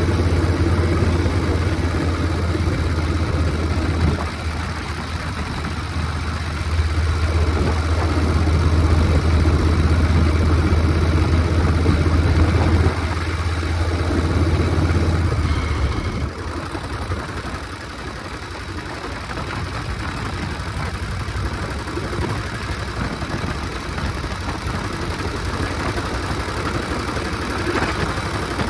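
1969 Harley-Davidson generator Shovelhead V-twin running under way, with wind rushing past. The low engine note is strong for the first part. About sixteen seconds in it falls away, leaving mostly wind and a lighter engine sound.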